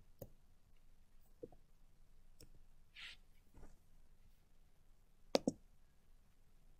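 Computer mouse clicks: a few faint scattered clicks, a short hiss about three seconds in, then a louder double click about five and a half seconds in as the play button is clicked.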